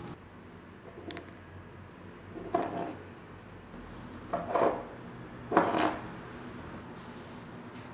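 Small items handled on a wooden tabletop: a light click about a second in, then three short, soft knocks, the later ones from a small ceramic dish being set down and picked up.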